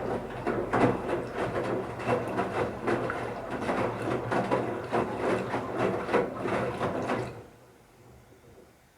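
Bauknecht Super Eco 7615 washing machine drum turning during the wash phase, with wet towels tumbling and water sloshing over a steady motor hum. The drum stops about seven seconds in.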